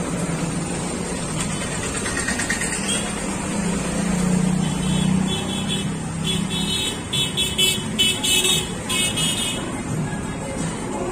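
Road traffic on a town street: vehicles and motorcycles running past, with a low engine hum in the first half and a run of short, high horn toots in the second half.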